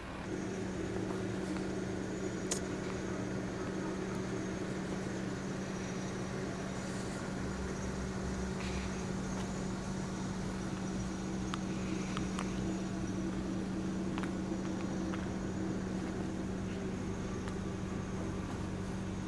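Steady low engine hum, as of a vehicle idling, holding one even pitch, with a few faint clicks over it.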